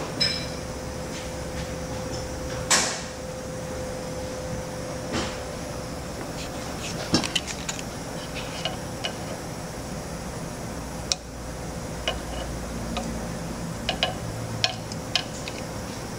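Pliers clicking and clinking on a steel motor shaft while working the shaft key out of its keyway, with a louder ringing clank about three seconds in and small bursts of clicks later. A steady faint hum underneath.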